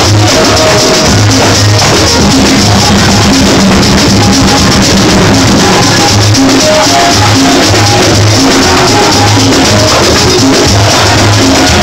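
Loud live church band music: a drum kit with cymbals and a keyboard playing a repeating bass line in a steady beat.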